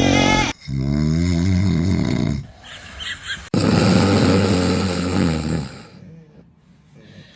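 A person snoring loudly: two long, low snores of about two seconds each, the second starting abruptly about three and a half seconds in.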